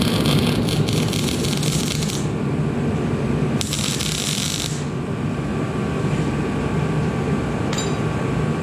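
Nuts being arc-welded into a steel bracket: two crackling bursts of the welding arc, one about two seconds long at the start and a shorter one about three and a half seconds in, over a steady low hum.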